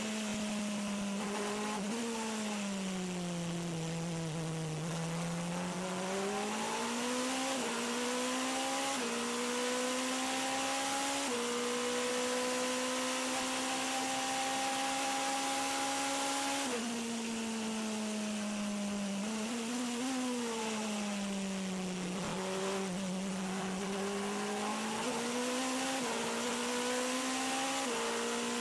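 Onboard sound of the Toyota TS 040 Hybrid LMP1 prototype's V8 racing engine at speed, over constant wind and road hiss. The engine note drops under braking, then climbs in short steps through the gears, holds steady for several seconds at high speed about halfway through, and drops and climbs again near the end.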